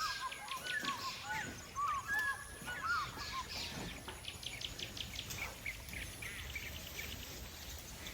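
Several birds chirping and whistling: many short rising and falling whistles, busiest in the first few seconds, over quick high-pitched chirps.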